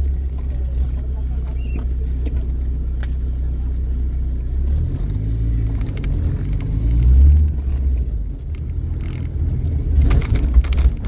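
Car engine and road rumble heard from inside the cabin. The engine note rises as the car speeds up about halfway through, then eases off. A few light knocks come near the end.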